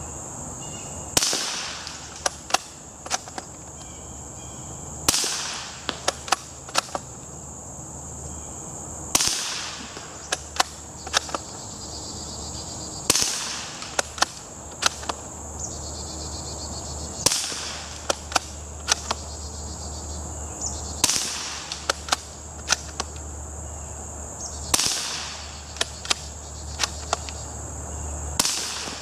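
Eight shots from an unsuppressed Ruger American bolt-action .22 rifle firing CB cap .22 shorts, about four seconds apart, each followed by a few quick metallic clicks of the bolt being worked to eject and chamber the next round. The rifle feeds and fires the shorts without a hitch. Crickets chirp steadily throughout.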